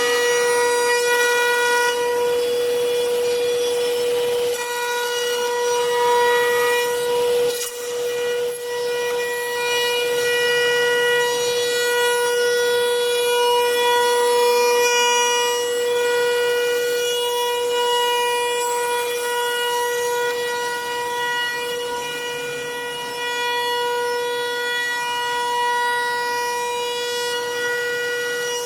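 CNC wood lathe running, giving a steady high whine on one pitch with a sharp knock about eight seconds in.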